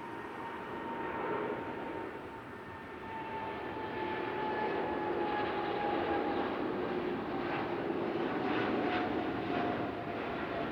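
Jet airliner's engines passing: a steady engine noise that grows louder, with a whine that slowly falls in pitch.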